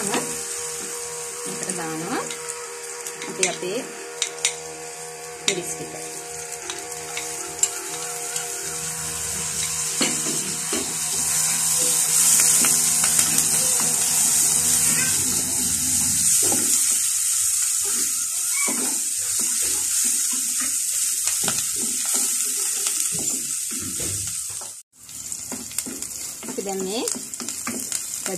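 Garlic, curry leaves and green chillies sizzling in hot coconut oil in a clay pot, a steady hiss that grows louder partway through. A wooden spoon stirs and scrapes them, knocking now and then against the pot's clay sides. The sound cuts out for an instant near the end.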